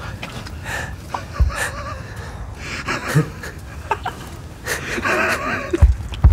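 A man breathing hard in short, strained breaths, some half-voiced, over a steady low rumble. Dull low thumps break in about a second and a half in and twice near the end, the last two the loudest.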